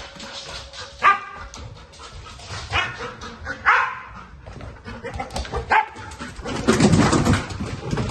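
A dog barking in short single barks, about four, one to two seconds apart, with a louder stretch of scuffling noise near the end.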